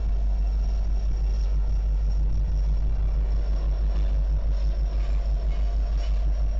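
EMD SD70ACe diesel locomotive running as it rolls past in a freight train: a steady low rumble.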